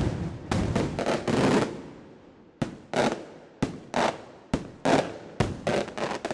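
Aerial firework shells bursting: a dense run of sharp bangs and crackle in the first second and a half, then, from about two and a half seconds in, a string of single sharp reports roughly half a second apart, each trailing off.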